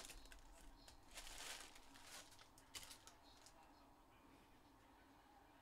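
Trading cards being handled on a table: faint rustling and a few light taps in the first three seconds, then near silence.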